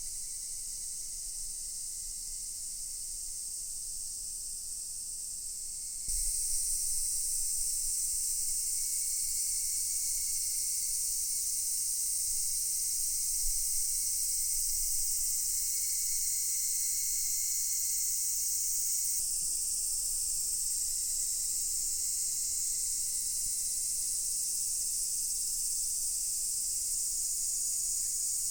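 Chorus of many cicadas singing together, a dense steady high-pitched buzzing drone. It grows louder about six seconds in.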